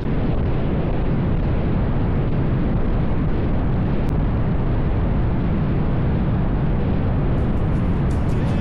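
Loud, steady wind rush and low rumble on the microphone of a camera on a moving vehicle.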